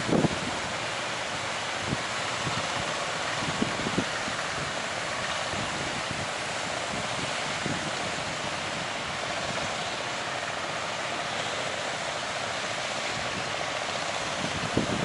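Heavy ocean surf breaking, a steady rushing hiss, with a few brief thumps of wind on the microphone in the first few seconds.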